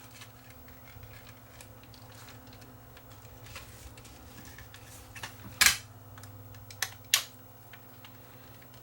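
Small clicks and taps of a partly disassembled camcorder's plastic and metal parts being handled, with three sharper clicks a little past the middle, over a steady low hum.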